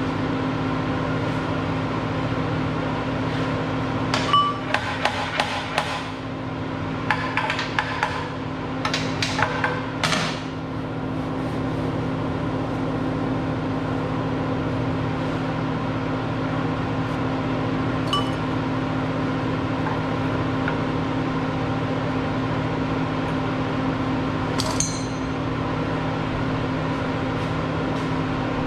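Light metallic taps and clinks of metal parts and tools, in quick clusters several seconds in and twice more singly later, one ringing briefly near the end. A steady machine hum runs underneath.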